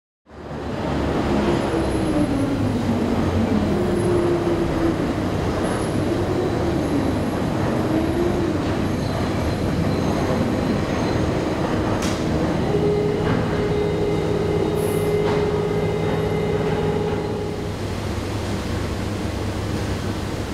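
Steady foundry machinery din as overhead cranes carry and tilt ladles of molten iron for pouring. A wavering tone runs through the first several seconds, a steadier tone is held for a few seconds from about thirteen seconds in, and there is a sharp click near the middle.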